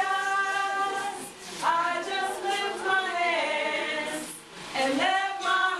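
A woman's voice singing a slow worship song, holding long notes, with other voices joining in.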